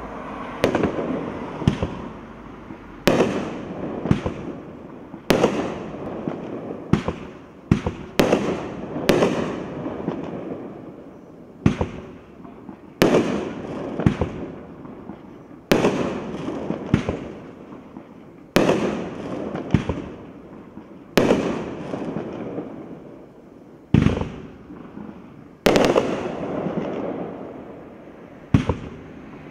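Multi-shot consumer fireworks cake firing in sequence: a sharp bang about every one to two seconds, each followed by a fading crackle as the shells break into crackling stars.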